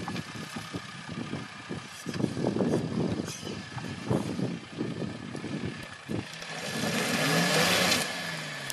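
Land Rover engine pulling the vehicle over rough, uneven off-road ground, its note lumpy and irregular, then rising louder with revving about seven seconds in.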